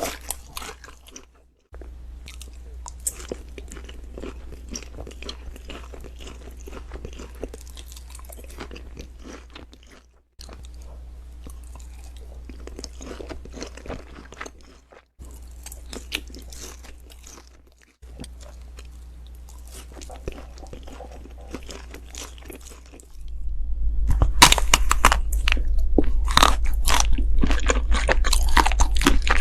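Close-miked chewing and crunching of food in a series of short eating clips joined by abrupt cuts, with a steady low hum under each clip. The last clip, near the end, is louder and crunchier.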